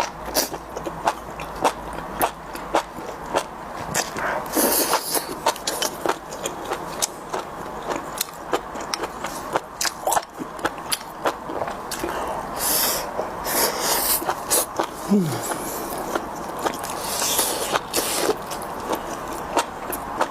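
Close-miked eating: crunchy bites and chewing, with many sharp clicks and a few short crackling bursts.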